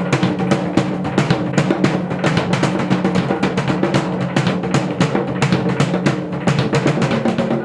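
Bagpipes and drums playing together: a steady bagpipe drone with a melody over it, driven by a fast, even drumbeat.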